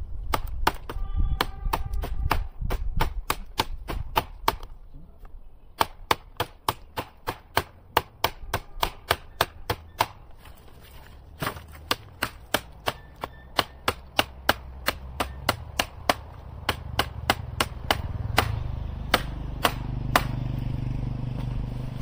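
Knife chopping into a piece of firewood: sharp strikes, about two to three a second, coming in runs with short pauses.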